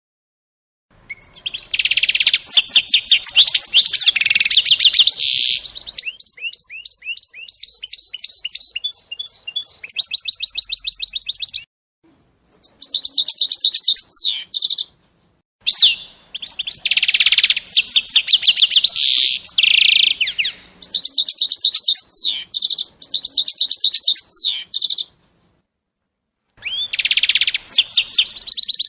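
A small songbird singing long runs of rapid trills and chirps, in about five bursts broken by short silent pauses.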